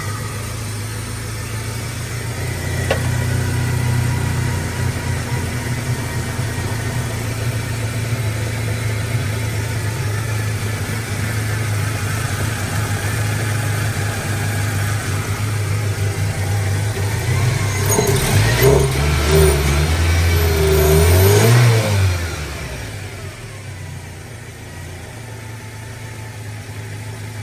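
Toyota 2RZ-FE 2.4-litre four-cylinder engine running steadily at idle. It is revved up and down from about 18 to 22 seconds in, then settles back to a quieter idle.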